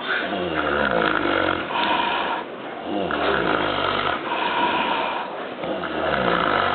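Sow snoring: a run of loud, rhythmic snores, each about a second long, following one another with short gaps.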